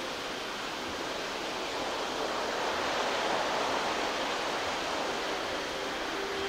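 Atlantic surf breaking on the shore, heard from the dunes as a steady rush of waves that swells about halfway through.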